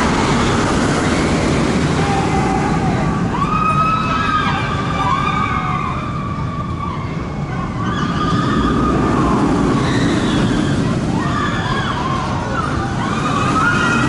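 Steel looping roller coaster running on its track, a steady rushing noise, with riders screaming again and again in long rising-and-falling cries.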